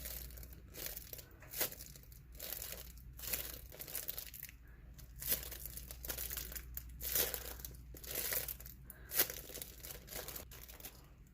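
Handmade squishy being handled in the hands, crinkling and rustling in irregular short bursts.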